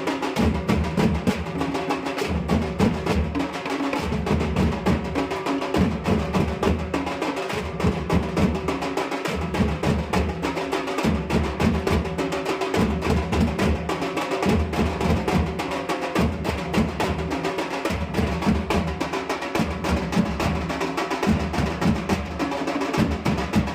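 Nashik dhol drums played in a group: fast, sharp stick strokes over deep bass beats that come in repeating phrases every second or two.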